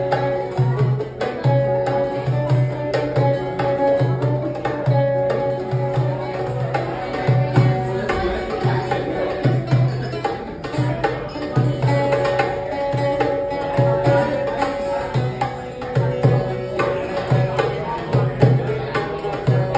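Live Middle Eastern fusion music: an amplified plucked string instrument plays a melody with long held notes over a steady hand-drum rhythm.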